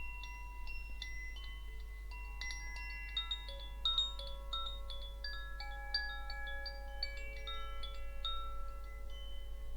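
Wind chime ringing: many clear notes struck one after another at an irregular quick pace, each ringing on and overlapping the others.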